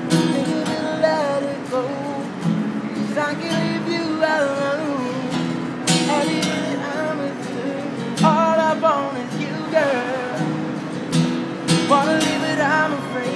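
A man singing a melody over his own strummed steel-string acoustic guitar, with the chords ringing under the voice and a few harder strums along the way.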